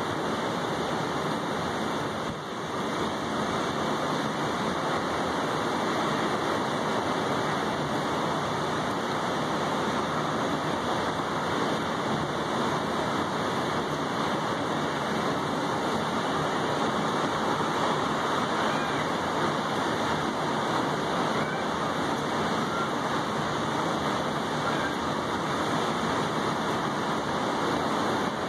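Steady heavy rain falling on a wet balcony table and railing: a dense, even hiss.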